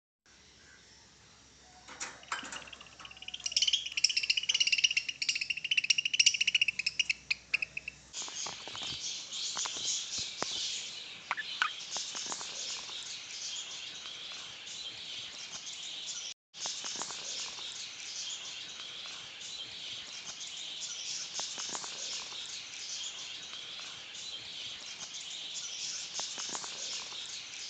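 Budgerigars chirping and chattering, a dense run of high short calls mixed with scattered short clicks.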